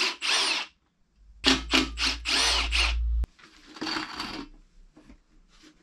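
Cordless drill-driver spinning out the fuel-tank mounting bolts: a few short bursts, then a steady run of about two seconds that stops abruptly. A short scrape follows as the loosened steel tank is handled.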